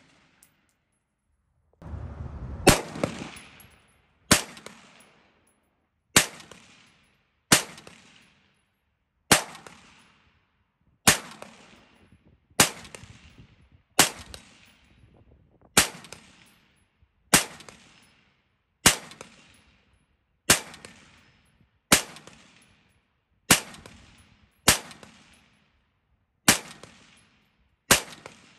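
Slow, steady semi-automatic fire from a 5.56 mm M16A4-pattern rifle, the Windham Weaponry 20-inch government model: about seventeen single shots, one every second and a half or so, each cracking and then fading out. A brief low rumble comes just before the first shot.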